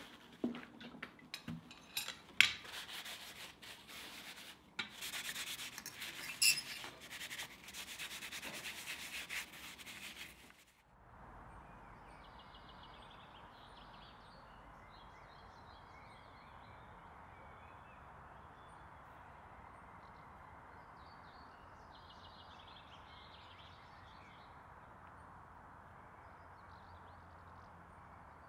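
A cloth rag rubbing boiled linseed oil onto a small forged steel cat figurine: uneven scrubbing strokes of cloth on metal with a few sharp knocks, lasting about ten seconds. It then cuts to faint outdoor ambience, a steady low background noise with small birds chirping now and then.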